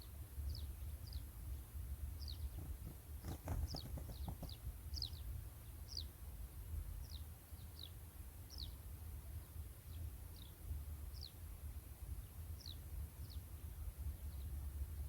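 Small bird calling with short, high chirps that slide downward in pitch, one every half second to a second, over a steady low rumble. A brief patch of clicks or rustling comes about three and a half seconds in.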